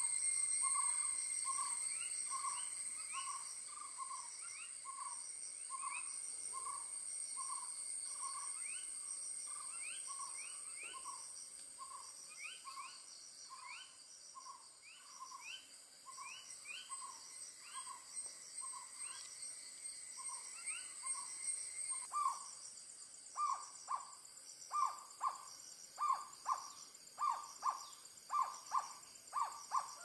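Jungle owlet calling: a long, even run of short hoots about one and a half a second, turning louder and into doubled notes about two-thirds of the way through. Insects buzz steadily and high-pitched underneath.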